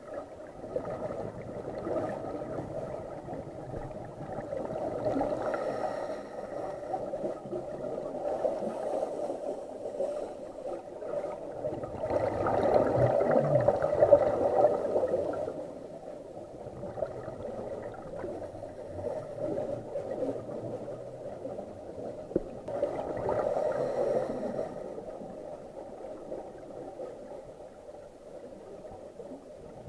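A scuba diver's regulator breathing heard underwater: muffled hissing and bubbling from the exhaled bubbles swells and fades in slow cycles, loudest about twelve to fifteen seconds in and again a little after twenty seconds.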